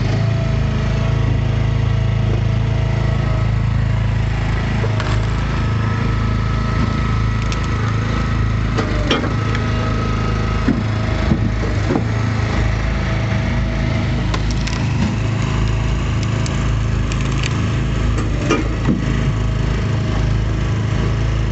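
An Easton Made log splitter's engine running steadily while a log is forced through the six-way wedge. The wood cracks and splinters several times as it splits apart.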